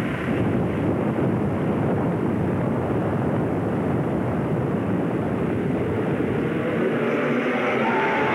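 A large pack of three-wheeled ATVs racing down a dirt track together, their many small engines blending into one dense, steady drone. Near the end some engines climb in pitch as they accelerate closer.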